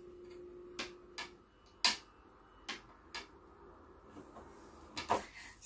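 Sharp wooden clicks and taps from hands handling the underside of a bamboo folding laptop table: about six separate, uneven clicks, the loudest about two seconds in.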